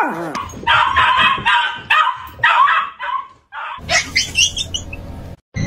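A Chihuahua yapping in a string of short, quick barks for about three seconds. After a cut, a few short, high, rising squeaks follow.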